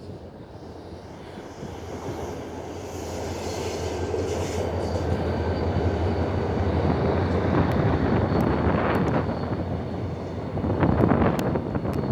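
Diesel locomotive hauling a passenger train as it passes, its engine drone growing louder over the first several seconds. Sharp wheel-on-rail clicks come in about two-thirds of the way through, loudest near the end.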